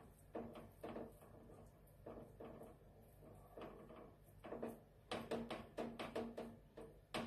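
Faint clicks and scrapes of two metal spoons knocking together as potato stuffing is pushed off one spoon with the other onto bread, with a quick run of taps about five to six seconds in.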